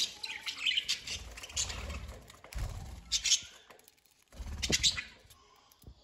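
Budgerigars chirping in short, repeated high bursts, with a low rumble twice underneath.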